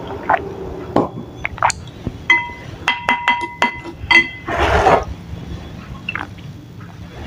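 Wooden spoon and fork knocking against a ceramic bowl as they are lifted from it, with scattered clicks and a run of short, bright ringing notes from the bowl. About two-thirds of the way through comes a brief rushing scrape.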